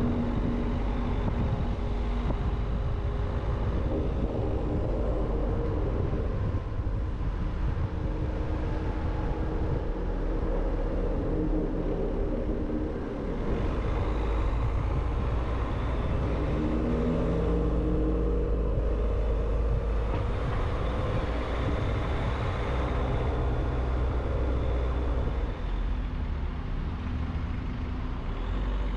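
A car driving through city streets: engine running with road rumble, its pitch rising and falling as it speeds up and slows, with other traffic around.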